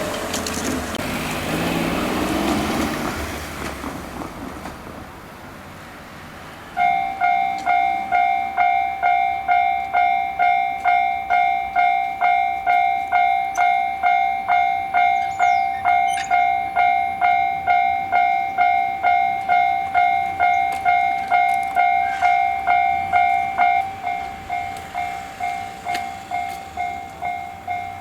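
A train running through the level crossing and fading away, its rumble falling in pitch. About seven seconds in, the crossing's electronic warning bell starts, ringing clangs at a little over two a second. Near the end it drops to a quieter level.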